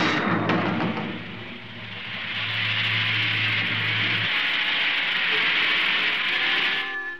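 Cartoon sound effect of a magic fog cloud billowing out: a long hissing rush that swells about two seconds in and cuts off suddenly near the end, with a low hum under its first half.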